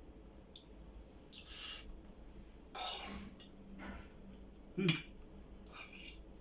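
Metal spoon scraping and clinking on a ceramic plate as rice is scooped up and eaten, with several short breathy rustles between. The loudest is a sharp knock about five seconds in.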